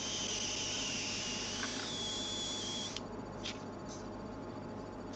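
Airbrush spraying paint: a steady airy hiss with a thin high whistle that cuts off about three seconds in. A few faint clicks follow over a low steady hum.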